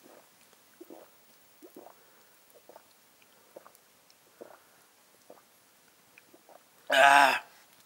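A person gulping juice from a glass mug, soft swallows about once a second, then a loud short voiced exclamation near the end as the drink is finished.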